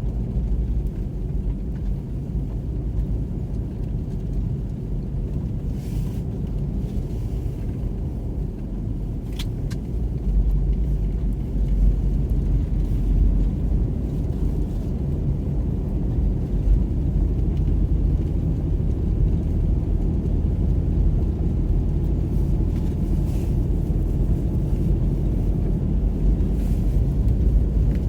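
Steady low rumble of a car's tyres and engine, heard from inside the cabin while driving on a snow-covered road; it gets louder about ten seconds in. A faint click comes about nine seconds in.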